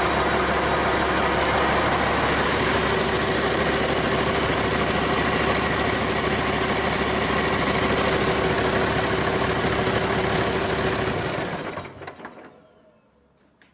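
Cummins 8.3-litre inline-six turbo diesel running steadily, freshly cold-started in a shop at about 40 degrees and running well. About eleven and a half seconds in it stops, dying away over about a second.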